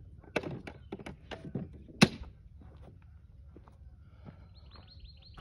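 Irregular light knocks and clicks, the sharpest and loudest about two seconds in, with a quick run of high chirps near the end.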